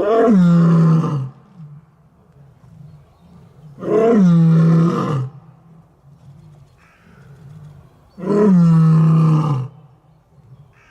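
Lion roaring three times, about four seconds apart; each roar is loud, lasts just over a second and falls in pitch.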